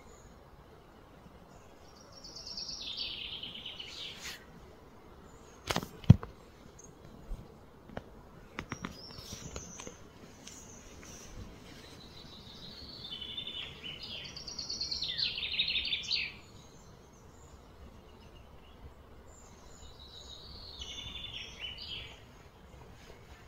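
Outdoor ambience with three bouts of high, buzzy calls that fall in pitch, each lasting one to three seconds, and a single sharp knock about six seconds in, followed by a few fainter clicks.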